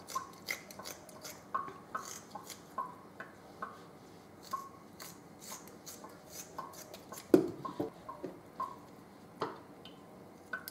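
Kitchen scissors snipping raw tripe into pieces, a short sharp snip every second or so, with one louder knock about seven seconds in.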